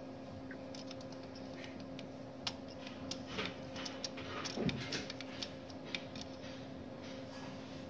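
Irregular clicking of the front-panel navigation buttons on a StorageTek SL48 tape library as they are pressed, thickest in the middle, with a dull thump near the loudest point. A steady low hum of the running library sits underneath.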